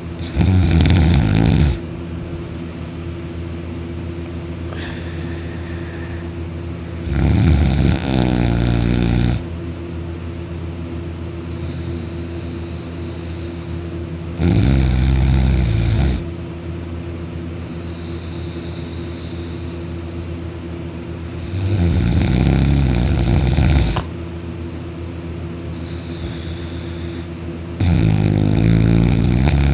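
Very loud, deep snoring: five long snores about seven seconds apart, each lasting one and a half to two and a half seconds, over a steady background hum.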